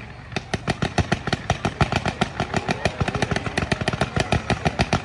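Fireworks going off in a rapid barrage of cracks and bangs, about ten reports a second, thickening about half a second in.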